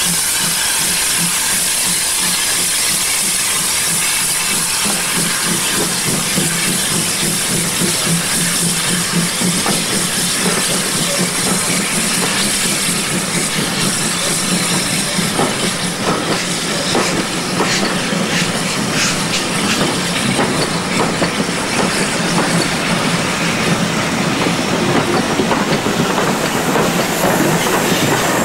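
TKh-class steam tank locomotive hissing heavily with steam around its cylinders as a passenger train moves off. From about halfway, the coaches' wheels click over the rail joints as the carriages roll past.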